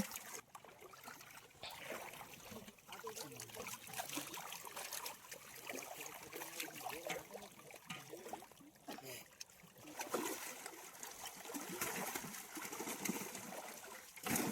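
Pond water trickling and splashing unevenly, with scattered small splashes and drips.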